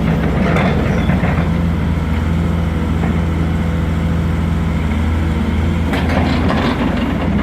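Volvo EC210B crawler excavator's six-cylinder diesel engine running steadily, with short bursts of metallic clatter about a second in and again around six seconds in.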